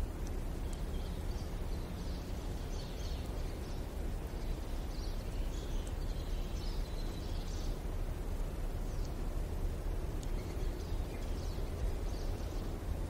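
Rural village ambience: birds chirping on and off over a steady low rumble of distant road traffic.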